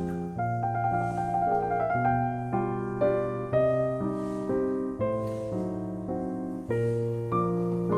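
Soft background piano music: slow, gentle chords and notes changing about every half second to second.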